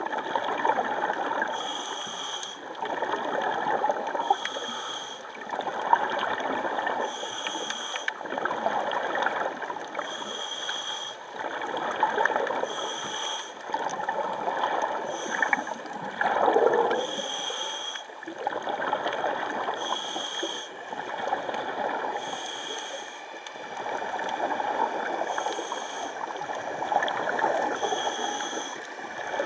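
Scuba diver breathing through a regulator underwater. Each breath is a short, high hiss on the inhale, followed by a longer gurgle of exhaled bubbles, repeating about every two and a half to three seconds.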